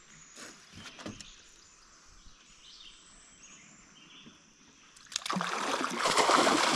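A hooked catfish on a limb line thrashing at the water's surface beside the boat. The loud splashing starts suddenly about five seconds in, after a few seconds of faint ticks from the line being handled.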